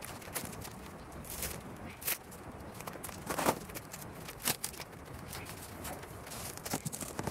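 Irregular crackles and clicks of a cured chop-mat and polyester-resin fiberglass panel being flexed and handled as it comes away from its oiled plywood pattern, the loudest crackle about halfway through.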